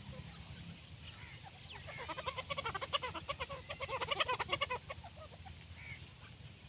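Grey francolin calling: a rapid chattering run of short notes that starts about two seconds in and lasts close to three seconds, with faint scattered chirps of other birds around it.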